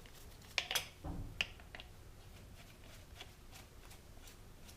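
Several sharp clicks and a dull knock from handling a cordless angle grinder while its side handle is moved to the other side; the grinder is not running. The clicks come in the first two seconds, the knock about a second in, then only faint handling noise.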